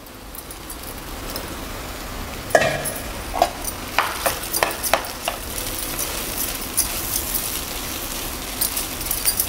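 Wooden spatula stirring mashed boiled potato into sizzling fried onions and spices in a non-stick frying pan. A steady sizzle runs under it, and from about two and a half seconds in come several sharp scrapes and knocks of the spatula against the pan.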